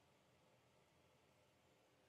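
Near silence: a faint steady hiss with a faint steady tone.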